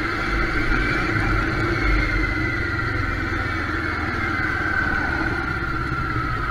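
Motorcycle engine running steadily at low speed in traffic: a low rumble with a higher whine that slowly falls in pitch.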